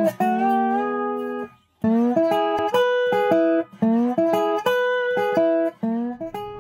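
Background music: a plucked guitar picking a tune, note after note, with a short break about a second and a half in.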